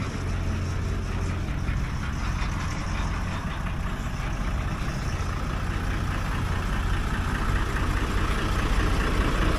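Hino Ranger truck's diesel engine idling steadily, growing a little louder toward the end.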